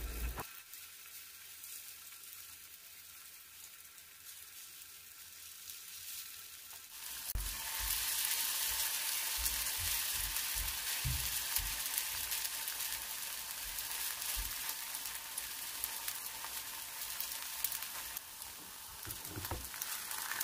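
Kimchi pancake batter frying in oil in a nonstick pan, sizzling. The sizzle is faint at first and grows louder about seven seconds in as more batter goes into the pan, with soft knocks of a wooden spoon against the pan.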